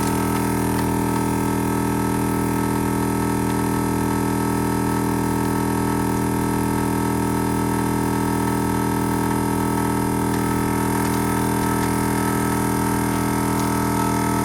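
Ironman 4x4 Air Champ Pro 12 V portable air compressor running steadily while inflating a tire, a constant unchanging hum with a strong fixed pitch.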